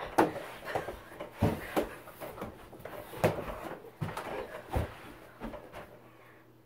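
Sharp thuds on a wooden floor, four loud ones about a second and a half apart with quieter scuffling between them, from players' feet and a small ball during a rough one-on-one game of mini basketball. It goes quieter in the last second.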